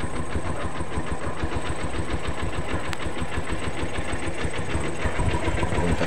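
A small engine running steadily, with a fast, even mechanical rhythm.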